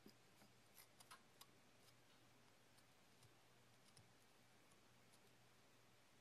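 Faint ticking and scraping of a hobby knife blade shaving dried stone-powder clay, a quick cluster of small clicks in the first second and a half, then scattered single ones.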